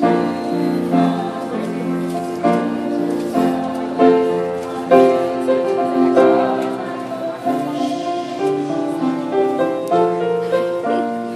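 Grand piano accompanying a group of singers, who sing together over its chords.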